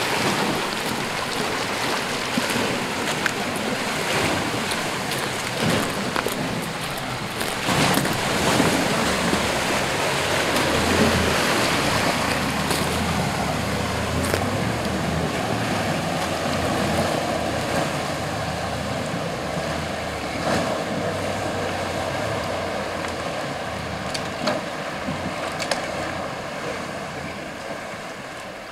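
Creek water rushing and splashing as a 1972 Chevy Blazer drives through it, its engine running underneath. It eases off a little near the end.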